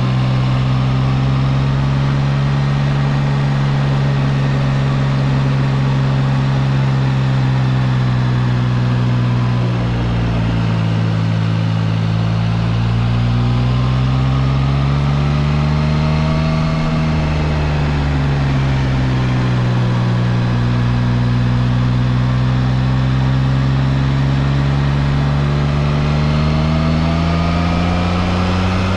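Triumph Trident 660's inline three-cylinder engine running under way at low to moderate revs. The revs dip about ten seconds in, rise and fall again around sixteen seconds, then climb steadily near the end as the bike accelerates.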